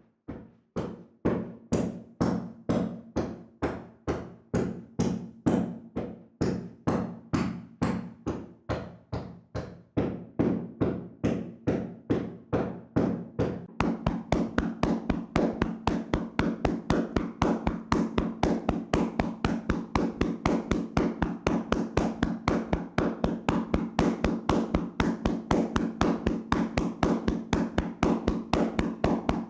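Hands rhythmically slapping and tapping on a person's body in a vigorous percussive massage. The strikes come about two a second, then from about halfway speed up to about five a second.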